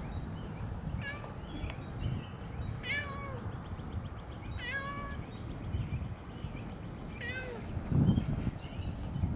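Grey tabby cat meowing several times, a call about every two seconds, from inside a pet stroller. A steady low rumble runs underneath, with a louder low bump about 8 seconds in.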